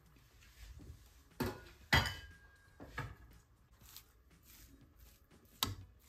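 A spatula stirring thick rava kichadi in a metal pan: a few sharp knocks and clinks against the pan, the loudest about two seconds in, with soft scraping between.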